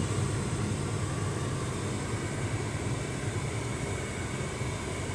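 Steady engine and road noise of a moving road vehicle heard from inside its cabin, a low, even hum.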